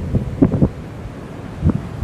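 Strong coastal wind buffeting the microphone in irregular low rumbling gusts, heaviest about half a second in and again near the end, with a lull in between.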